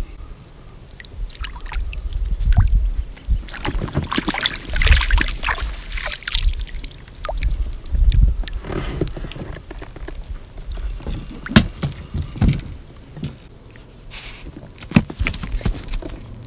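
Water sloshing and splashing as a mesh landing net is swept through a lake and lifted out with a small fish in it, dripping. A few sharp knocks follow in the second half as the net is brought over the boat.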